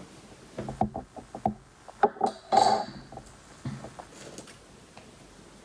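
Small hard containers and utensils knocking and clinking on a table: a quick run of clicks and taps, loudest about two to three seconds in, then it settles.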